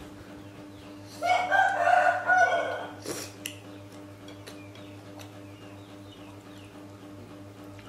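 A rooster crowing once, about a second in, a single call of roughly a second and a half, over a steady low hum.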